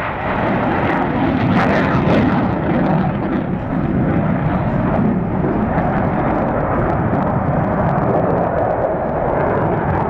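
Jet aircraft flying past, a loud, steady rush of engine noise that turns a little brighter and harsher about two seconds in.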